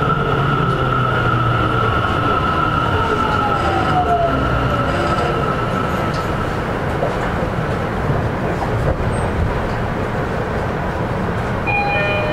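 A Tokyo Metro 10000 series train's Mitsubishi IGBT-VVVF inverter whine falls steadily in pitch over rail and wheel rumble as the train slows, heard from inside the car. Near the end, a few steady chime-like tones come in.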